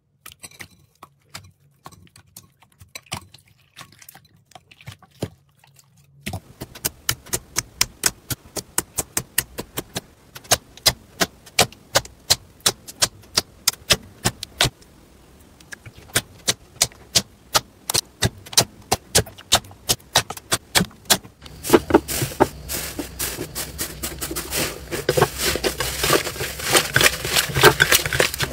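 Hands squeezing and pressing clear jelly slime: sharp wet clicks and pops in quick succession, faint at first and louder after about six seconds. Near the end it changes to a denser, louder crackle as a thicker, clumpy slime is kneaded.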